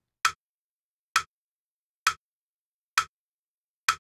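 Crotchet beat pulse: five evenly spaced, sharp metronome-style clicks a little under a second apart, counting in the tempo before the extract.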